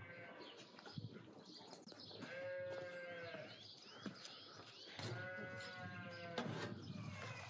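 A sheep bleating twice, each call held for about a second. Small birds chirp in short rising notes in between.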